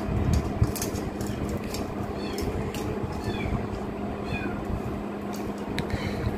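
Short, high calls, each falling in pitch, repeated every half second to a second, over scattered clicks and rustles of items and plastic packaging being handled.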